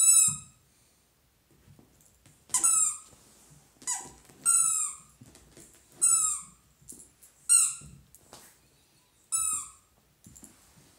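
Orange rubber squeaky bone toy squeaking as a dachshund bites down on it: about seven short squeaks, each falling in pitch, one to two seconds apart.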